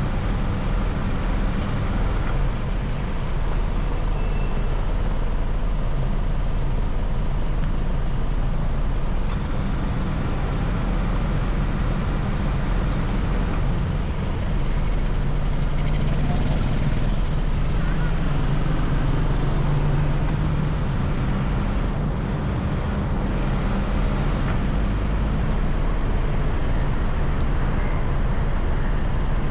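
A car driving through city traffic: a steady low rumble of engine and tyre noise on the road, with a brief hiss swelling about halfway through.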